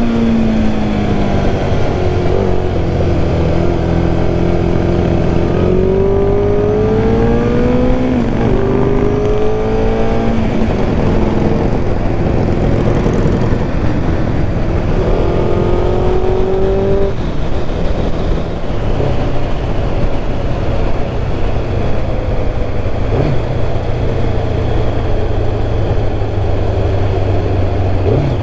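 Kawasaki ZX-11's inline-four engine under way, its note rising as it pulls and dropping at each upshift several times, then rising once more around the middle, over steady wind rush. Near the end it settles to a low, even running note.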